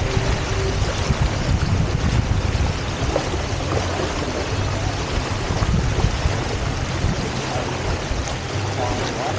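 Steady wind buffeting the camera microphone and water rushing and splashing past the hulls of a Hobie Tiger F18 catamaran under sail.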